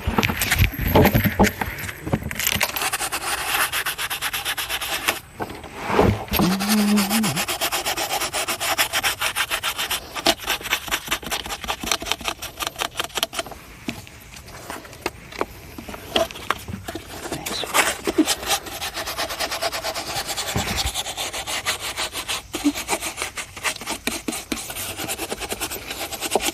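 Rapid, repeated scraping and rubbing strokes with a few short pauses, from cleaning up excess hot glue on the plastic inner wall of a refrigerator.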